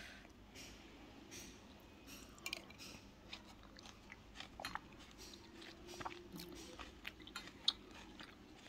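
Steel spoon stirring and scooping thick, wet modhu bhat rice mush in a steel bowl: faint, irregular wet clicks and squelches.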